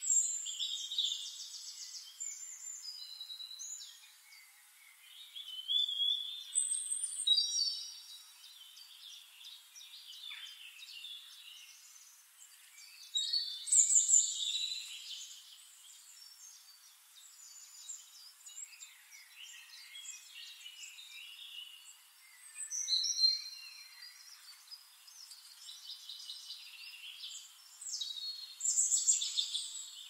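Several small songbirds singing at once, a mix of high trills, chirps and whistled notes. Louder bursts of song come every few seconds over quieter calling in between.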